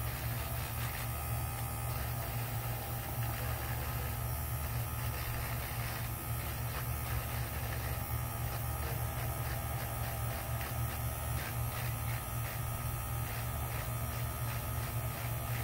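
Handheld electric nail file running steadily with a sanding band bit, as a plastic nail tip is sanded to give it surface texture and blend it into the natural nail.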